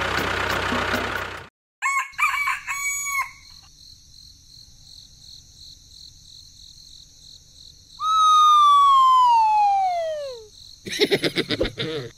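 A rooster crowing: one long, loud call that falls steadily in pitch, preceded by a few short clucking calls. An engine-like noise cuts off in the first second and a half.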